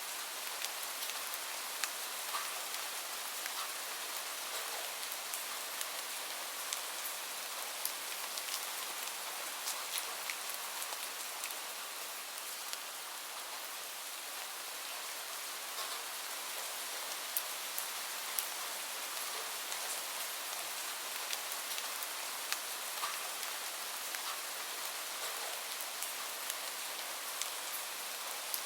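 Steady rainfall: an even hiss with many separate drops tapping on a surface.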